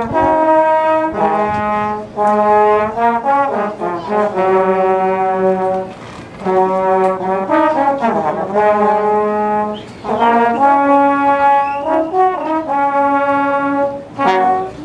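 Trombones playing a short melodic demonstration passage, phrases of held notes with brief gaps between them, and a sliding dip in pitch from the slide about eight seconds in.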